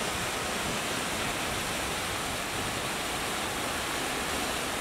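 Muddy floodwater rushing steadily through a concrete storm drain, a continuous churning torrent swollen by heavy rain.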